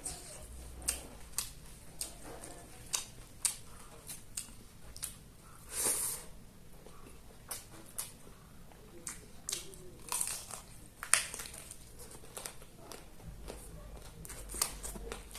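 A person eating chicken: chewing and crunching with frequent sharp clicks and smacks, and longer crunches about six and ten seconds in.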